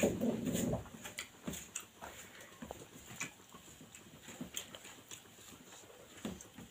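Close-up eating sounds: a person chewing rice with wet lip smacks and small scattered clicks, with a louder noisy burst in the first second.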